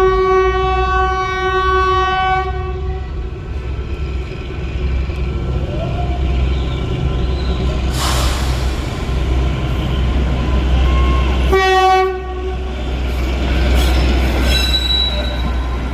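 A train horn sounds one steady blast of about three seconds at the start and a short second blast about twelve seconds in. Between and under the blasts the train's running rumble goes on steadily.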